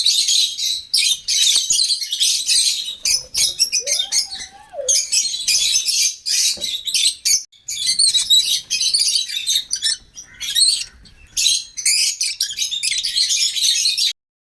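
A flock of caged small parrots chirping and chattering together: shrill, high calls in dense overlapping bursts with short pauses. The calls cut off suddenly near the end.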